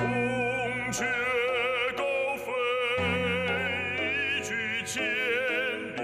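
Operatic-style singing with a wide vibrato over the accompaniment of a zhu, an ancient Chinese struck zither. Low notes are held beneath the voice, and a few sharp struck notes cut in.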